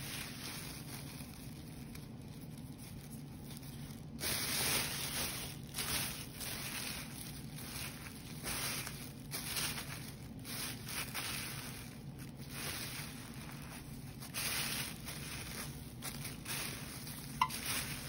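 Plastic grocery bag rustling and crinkling in irregular bursts as a hand mixes dry, seasoned fish-fry breading inside it, louder from about four seconds in. A steady low hum runs underneath, and there is one sharp click near the end.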